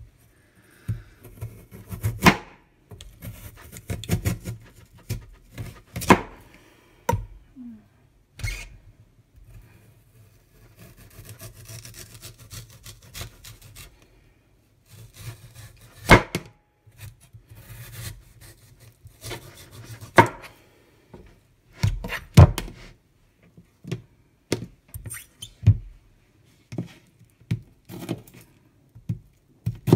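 Kitchen knife cutting a Korean radish on a plastic cutting board: irregular thunks of the blade hitting the board, a second or more apart, with soft scraping between them.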